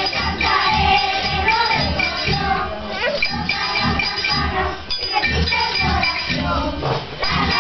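Live folk music: a group of children singing a carol with tambourines and other jingling percussion shaken in a steady rhythm.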